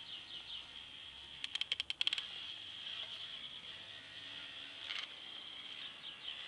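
K'nex toy car's electric motor and plastic gear trains whirring with a steady high whine. A quick run of about a dozen sharp clicks comes about a second and a half in, and a single click near five seconds.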